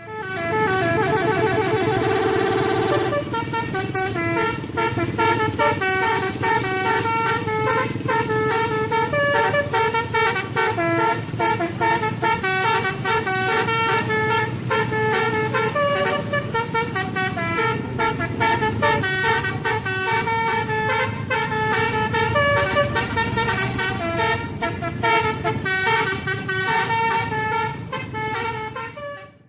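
Indonesian bus 'telolet' multi-tone horn playing a tune: a held chord for about three seconds, then a long run of short stepped notes.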